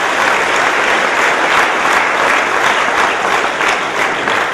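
Audience applauding, a dense and steady round of clapping.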